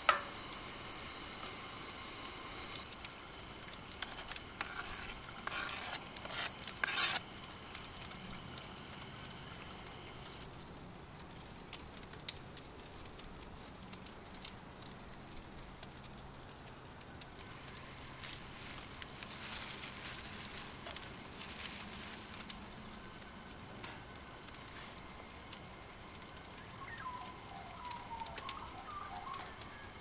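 Campfire cooking sounds: a wood fire crackling and food sizzling, with scattered sharp pops and clicks over a soft steady hiss. The pops are busiest in the first eight seconds or so.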